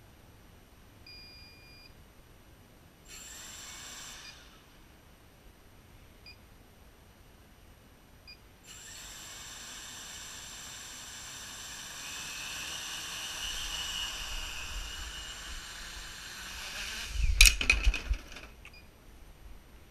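A short double-tone beep about a second in, then a homemade quadcopter's brushless motors with 10x5 carbon-fibre propellers whir briefly. From about nine seconds they spin up into a steady whine that rises a little as it tries to take off. Near the end comes loud clattering as propellers and frame strike the deck and chairs: the quad lurches forward out of control, a fault the builder suspects lies with motor number one.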